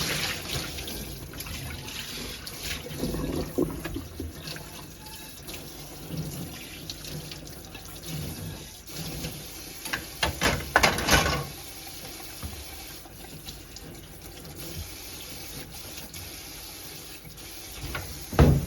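Water running and splashing, with a few louder knocks partway through and near the end.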